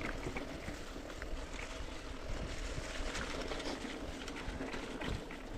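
Mountain bike rolling along a dirt singletrack: steady rumble of tyres and wind on the microphone, with scattered small clicks and rattles.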